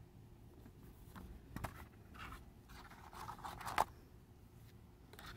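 Hands handling photo cards and a cardboard presentation box: soft rustling and scraping, with a few light clicks, the sharpest about four seconds in.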